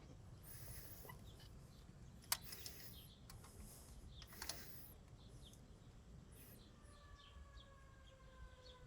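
Near silence with a few faint, scattered clicks and knocks, and a faint falling tone near the end.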